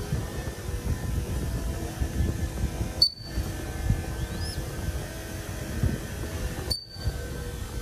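A few thin, high chirps from a crested goshawk chick, one rising, over a steady low rumble. The sound cuts out briefly twice.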